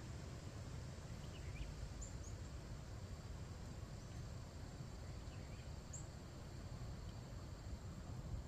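Open-field ambience: a steady low rumble, a faint steady high insect drone, and a few short faint bird chirps scattered through it.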